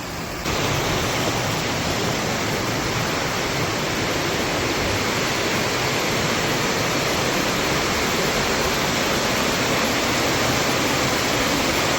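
River water rushing in a steady, even roar of noise, which gets suddenly louder about half a second in.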